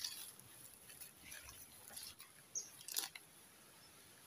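Footsteps rustling and crunching through grass and dry fallen leaves: light, scattered crackles, with one sharper snap about three seconds in.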